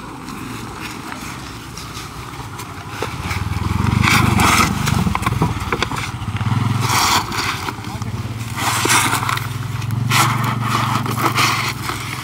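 A small engine running nearby, its low hum swelling and easing, with bursts of scraping and rustling as damp coconut coir is scooped and packed into plastic flower pots.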